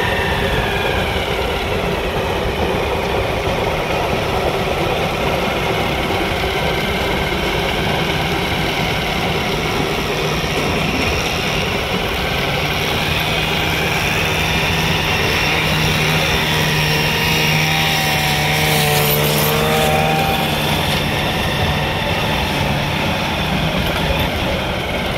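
Darjeeling Himalayan Railway B-class steam locomotive hauling a passenger coach past, a continuous running noise, with a steady low tone coming in about halfway through.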